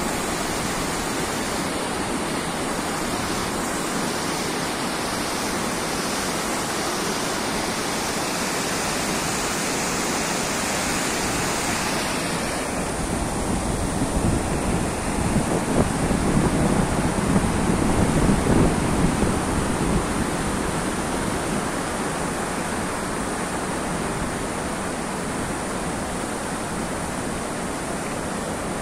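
Floodwater of a river that has burst its banks, rushing over a washed-out road: a steady, loud rush of churning muddy water, louder for a few seconds around the middle.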